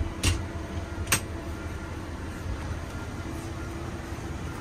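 Two sharp knocks in the first second or so as a person moves through the boat's walk-through toward the bow, then a steady low hum with a faint steady tone.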